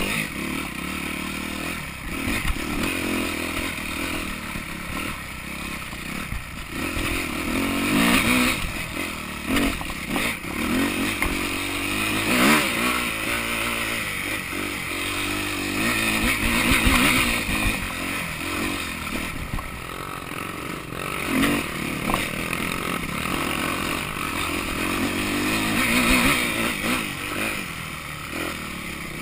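Yamaha YZ250F four-stroke single-cylinder dirt bike engine running on and off the throttle, its pitch rising and falling as it revs up and drops back. Scattered knocks and rattles from the bike over rough ground.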